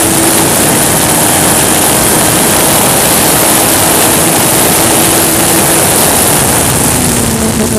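Race car at speed on the straight: loud rushing wind and road noise over the car-mounted microphone, with the engine's steady drone underneath. Near the end the engine note drops a little.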